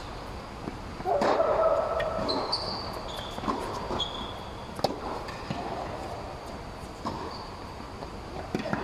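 Tennis balls struck by rackets and bouncing on a hard court, sharp pops spaced through a rally, with high-pitched squeaks of tennis shoes on the court surface. A short, louder burst comes about a second in.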